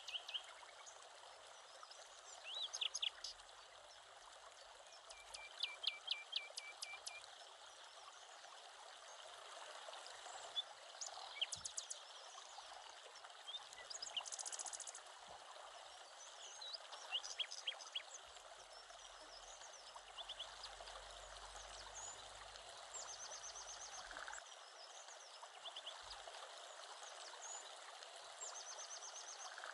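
Steady rush of a stream, with birds chirping and trilling over it now and then.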